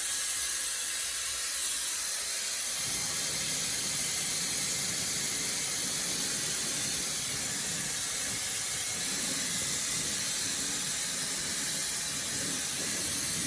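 Quvus high-speed hair dryer (110,000 RPM motor) running, a steady loud rush of air with a thin high whine. About three seconds in the sound fills out lower down.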